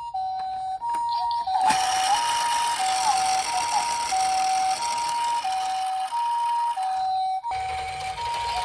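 Japanese ambulance two-tone "pee-po" siren, alternating evenly between a high and a low tone, each held a little over half a second. A steady rushing noise runs beneath it from about two seconds in and drops out briefly near the end.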